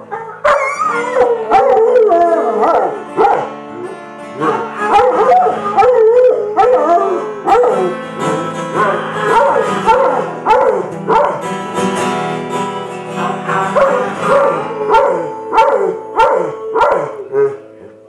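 A Rottweiler howling along to strummed acoustic guitar chords, its long wavering howls rising and falling in pitch in phrases, over the steady ringing of the chords.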